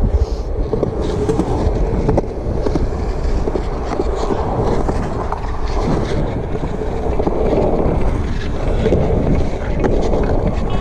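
Skateboard wheels rolling over smooth concrete in a skatepark bowl, heard close up as a steady loud rumble with a hum, broken by a few light clacks.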